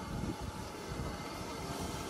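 LMS Stanier Mogul 2-6-0 steam locomotive 13268 moving slowly with its cylinder drain cocks open: a steady hiss of steam over a low, uneven rumble.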